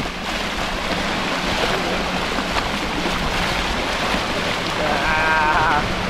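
Baltic Sea waves washing onto the tip of a sandy spit, with wind on the microphone, a steady rush of surf. About five seconds in, a short wavering vocal sound rises over it.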